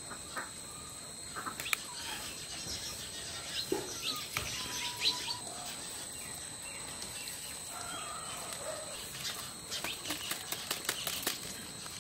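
Birds chirping with scattered short calls, mixed with light clicks and crackles of fresh betel leaves being folded by hand.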